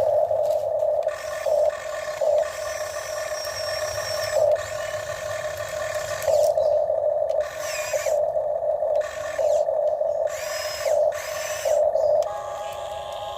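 Electric gear motors of a Huina RC excavator whining steadily as it works, swelling louder in short irregular surges as the controls are moved.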